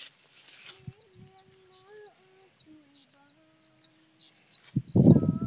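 Small birds chirping and twittering in quick, high notes, over a lower drawn-out call that bends slightly in pitch. Near the end, loud rumbling bursts break in.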